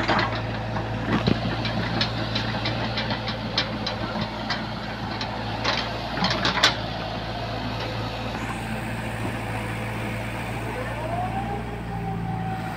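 Volvo EC140DL crawler excavator's diesel engine running steadily as it digs wet pond mud. A string of sharp knocks and clanks from the bucket and arm comes in the first half. Near the end a whine rises and then holds steady.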